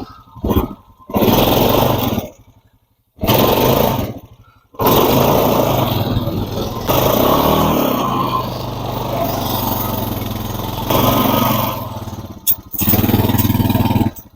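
Four-wheeler (ATV) engine running as it drives, heard in several stretches with abrupt breaks between them.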